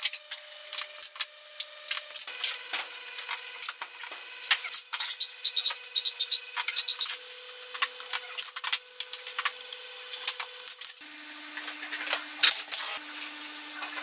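Thin wooden shingles clicking, tapping and rubbing against each other and the roof boards as they are handled and laid on a small wooden birdhouse roof, with many short sharp taps. A faint steady hum drops in pitch twice.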